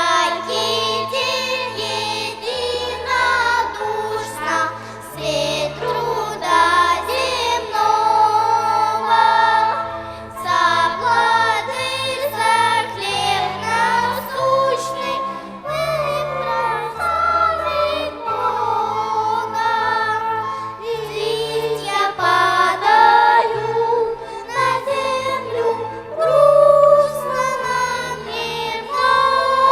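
A choir singing a hymn to the accompaniment of a violin ensemble, over steady low bass notes that change every second or two.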